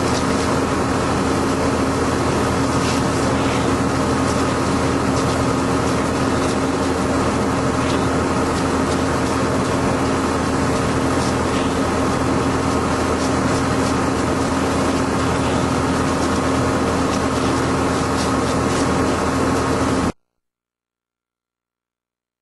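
An engine running steadily with a constant drone, with faint scattered clicks over it; it cuts off suddenly about twenty seconds in.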